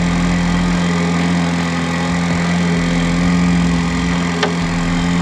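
Small kicker outboard motor running steadily at trolling speed. A single sharp click about four seconds in.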